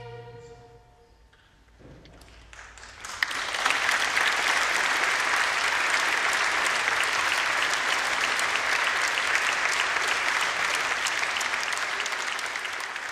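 The last held chord of the choir and orchestra dies away, and after a brief pause the audience breaks into applause, building over a second or so and then holding steady.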